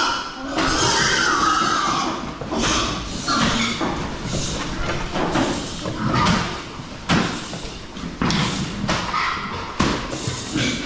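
Several pigs squealing again and again as they are herded, with sharp knocks and thumps in between.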